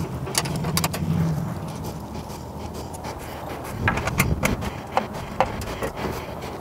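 Hand wrench on the roadster's side panel bolts, making sharp metallic clicks, clinks and scrapes, clustered near the start and again from about four seconds in. A low hum runs under the first two seconds.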